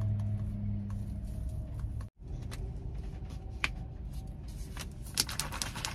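Drink powder poured from a paper packet into a plastic water bottle, followed by scattered clicks and crinkles of the plastic bottle and its cap being handled, which grow busier near the end. A low steady hum stops about a second and a half in, and the sound cuts out briefly about two seconds in.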